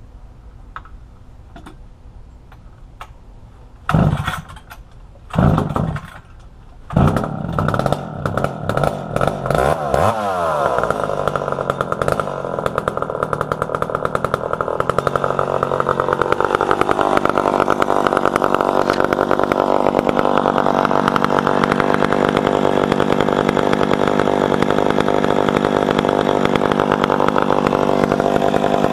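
McCulloch Pro Mac 700 70.5 cc two-stroke chainsaw being pull-started: two short pulls that don't catch, then it fires on the third, about seven seconds in, and sputters into running. Its pitch drops twice as it settles, and it then runs loud and steady.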